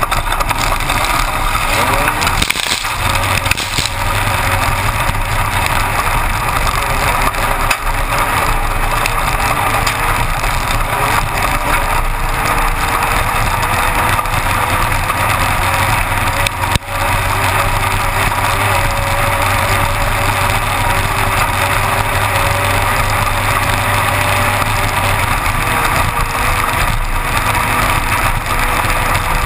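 Inside a Class 1-1600 desert race car at speed: its air-cooled 1600 cc Volkswagen engine runs hard under a loud, steady din of rattle and ground noise, with a few sharp knocks over rough terrain.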